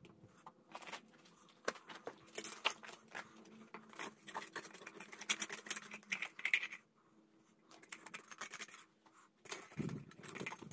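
Steel skimmer scraping and clicking against the inside of a hot clay-graphite crucible, scraping out leftover aluminium and dross in a string of quick scratches; it pauses for a couple of seconds near the end.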